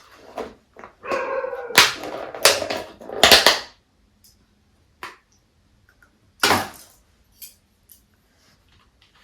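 A plastic food container being handled and opened: several sharp plastic snaps with rustling, the loudest in the first half and one more snap near the end.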